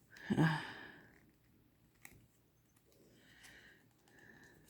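A woman's long sigh of frustration, then softer breaths and a faint click as she works at a tight cardboard tuck box.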